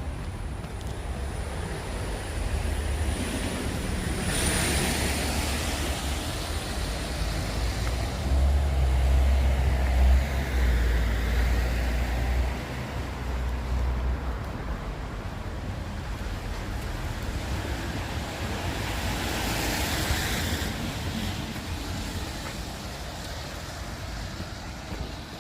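Cars passing on a wet road, their tyre hiss swelling and fading twice, about four seconds in and again near twenty seconds, with a deep rumble, the loudest sound, from about eight to thirteen seconds in.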